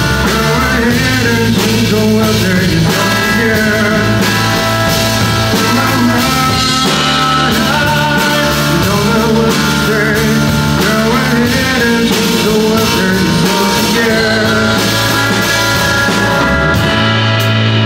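A rock band playing live through a loud amplified PA: a full band with electric guitar, in a stretch of the song where no lyrics are picked out.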